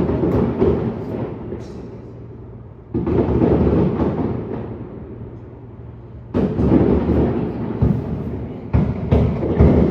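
Aerial fireworks bursting: a string of deep booms about every three seconds, with two in quick succession near the end. Each boom fades out in a rumble with some crackle.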